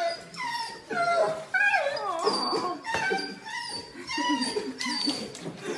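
Large dog whining and crying in a run of high, wavering whines, one after another: the excited cries of a dog greeting its returning owner.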